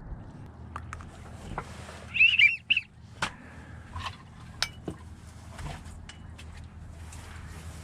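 A short run of high, warbling chirped whistle notes about two seconds in, over scattered sharp clicks and knocks.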